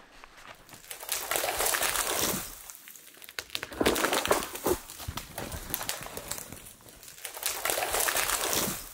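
A person trudging through deep snow: crunching and rustling footsteps that come in three long surges with quieter pauses between.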